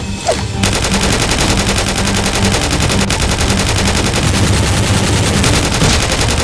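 Rapid, continuous automatic gunfire, a machine-gun sound effect laid over the Nerf blaster action, starting about half a second in.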